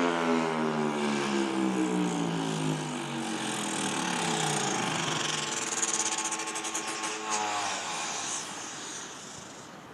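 FS&S Thunderbolt 1000 rotating mechanical warning siren winding down after its alert: its tone slides steadily down in pitch and fades over about five seconds, leaving a fainter rushing noise that dies away. Its horn is missing its top two bolts, which the owner takes to explain why the siren is not very loud.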